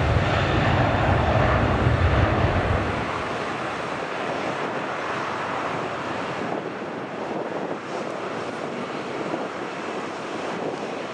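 Jet airliner passing, its engines loud with a deep rumble for about the first three seconds. The rumble then falls away, leaving a steady, fainter rushing noise as the aircraft moves off, with some wind on the microphone.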